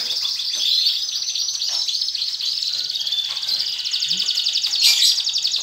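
Many caged canaries singing and chirping together in a dense, continuous run of fast trills, with a sharp click near the end.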